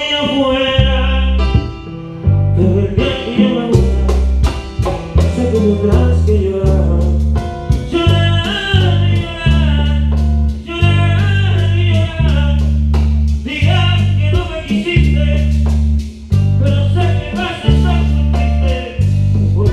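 Live band playing a song, with a lead voice, a bass line that changes note every second or so, and steady percussion strikes.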